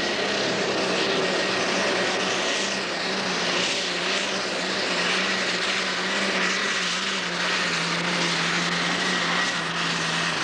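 Super stock pulling tractor's engine running flat out under full load while dragging a weight-transfer sled, a loud steady drone holding nearly the same pitch, with a faint high whine above it.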